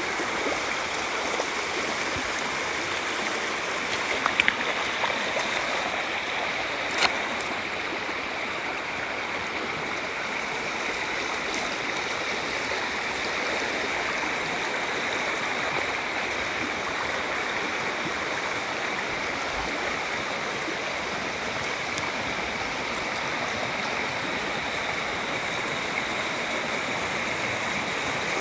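River water rushing steadily, with a few faint clicks about four and seven seconds in.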